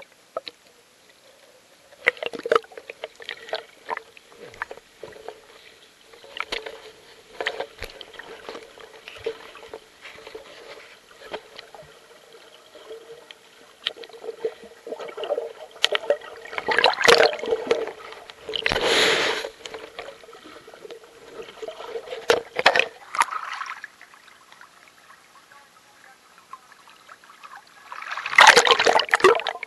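Creek water heard from an underwater camera: muffled sloshing and gurgling with many scattered clicks and knocks over a faint steady hum. Louder bursts of splashing come twice, midway and near the end as the camera nears the surface.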